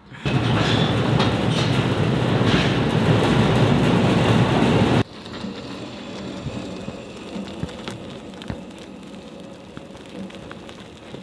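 Loud steady rushing noise that cuts off abruptly about five seconds in, giving way to a much quieter steady hum with a few faint ticks.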